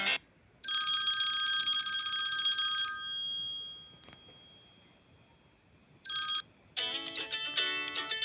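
iPhone 7 Plus built-in alert tones played in turn. A bright chime starts about half a second in and rings out, fading over a few seconds. A short blip sounds around six seconds, then a guitar-like ringtone melody begins near the end.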